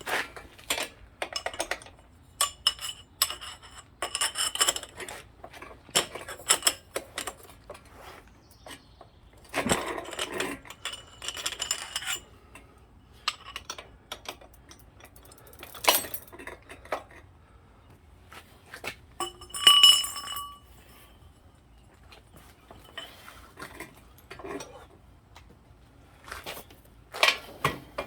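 Metal hand tools clinking and clattering in irregular bursts, with a few short metallic rings, the loudest about two-thirds of the way through: wrenches being handled and worked against an e-bike pedal and crank.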